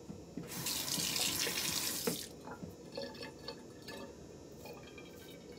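Water running from a bathroom tap for about two seconds, then a few short, faint scrapes and clicks as the Merkur 38C safety razor is drawn over the lathered upper lip.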